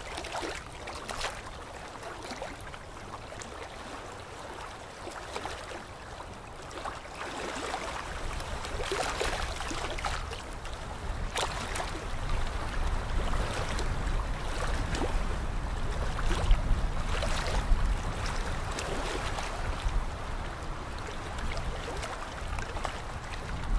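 Dental suction hissing and gurgling steadily, with a few light instrument clicks; a low rumble builds underneath about eight seconds in.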